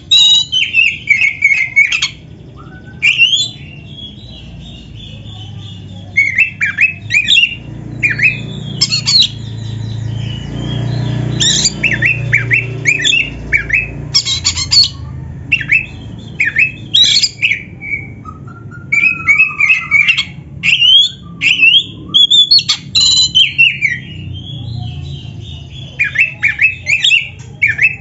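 Oriental magpie-robin (kacer) singing in loud, rapid phrases of whistled and harsh, downward-sweeping notes, broken by short pauses. A low background rumble swells and fades in the middle.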